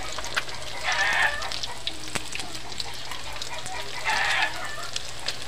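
Oil sizzling and crackling steadily as fish patties deep-fry in a wok. Two short animal calls, about three seconds apart, rise above the frying and are the loudest sounds.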